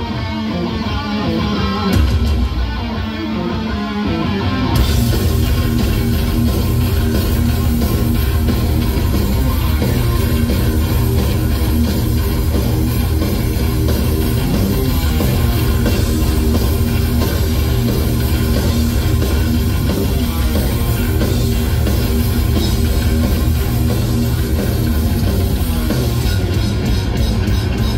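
Live heavy metal band heard from the crowd: distorted electric guitars, bass and drums playing loud, with the full band coming in hard about five seconds in.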